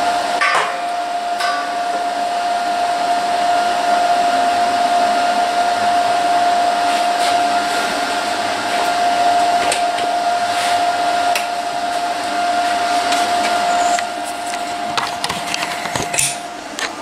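A small electric motor running with a steady whine, then switching off shortly before the end, with a few light clicks and knocks over it.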